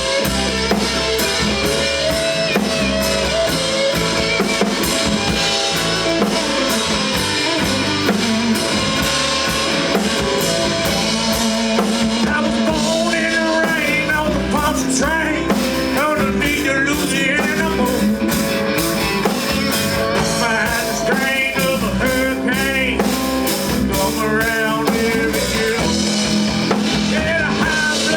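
A band plays an instrumental passage with a drum kit and guitar. About halfway through, a lead melody of bending, wavering notes comes in over the beat.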